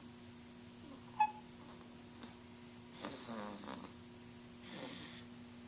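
Snoring: a raspy snore falling in pitch about three seconds in, lasting just under a second, then a fainter breath near the end, over a steady low hum. A brief, sharp high-pitched squeak about a second in is the loudest sound.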